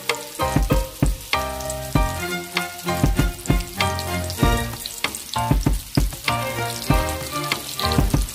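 Flour-coated chicken deep-frying in hot oil in a wok, a steady sizzle and crackle, under background music with a steady beat.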